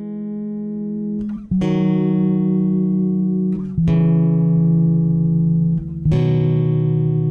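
Background music: guitar chords struck and left to ring, a new chord about every two seconds.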